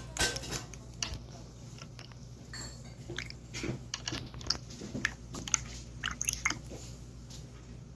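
Water-sound slime being squeezed and pressed by hand, giving irregular wet clicks, pops and squelches.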